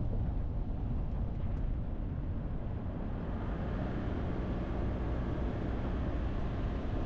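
Steady road and wind noise of a moving car: tyre rumble with a windy hiss that grows a little stronger about halfway through.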